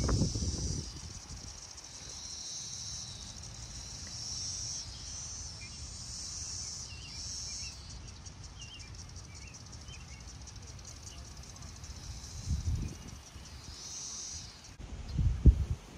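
Insects trilling in a steady high-pitched chorus that swells in short pulses every second or so, with faint bird chirps and a few low rumbles near the start and the end.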